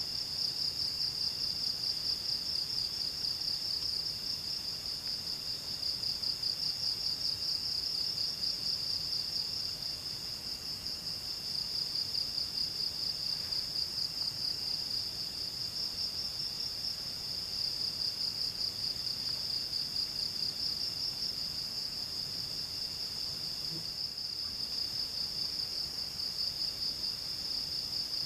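Insects trilling continuously in a high, rapidly pulsing chorus, with a second, lower insect trill coming and going in stretches.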